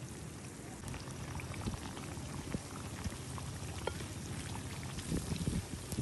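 Pot of potatoes and onions bubbling as it boils over a wood-ember fire, a steady hiss with many small pops and crackles. A few low thuds come in near the end.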